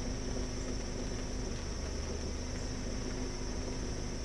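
Steady insect chorus, crickets or katydids, as one constant high trill over a low, even hum and hiss.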